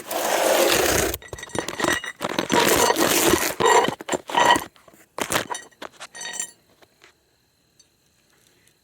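Camera being handled and set down: loud rubbing and knocking on the microphone for about the first second, then a few seconds of scraping, knocks and metallic clinks that die away to faint ticks.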